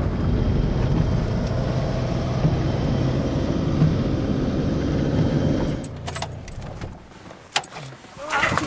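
Steady low road and engine rumble inside a moving car, which dies away about six seconds in. A few light clicks and jangles follow.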